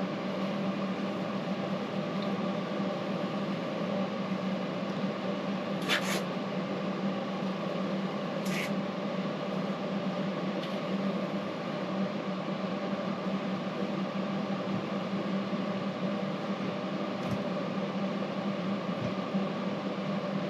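Steady machine hum with a strong low tone, unchanging throughout. Two brief hissing scrapes about six and eight and a half seconds in.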